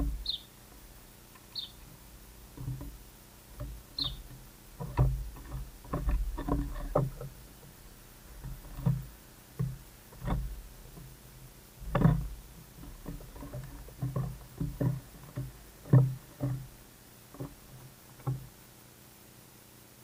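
A squirrel moving about and feeding on a wooden rail right beside the microphone: irregular knocks, bumps and scrapes, some loud, as it handles seed and shifts against the wood and camera. A bird gives three short high chirps in the first few seconds.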